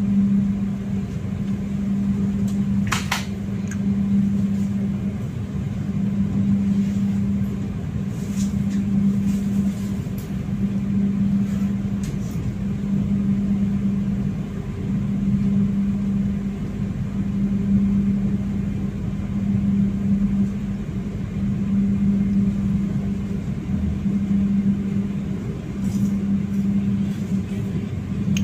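Cabin noise of a moving KA Kutojaya Utara economy-class passenger train: a steady low hum that swells and fades about every two seconds, with one short sharp click about three seconds in.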